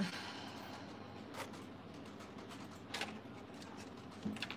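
Quiet room tone with two faint, short clicks from hands handling small items, about a second and a half in and again about three seconds in.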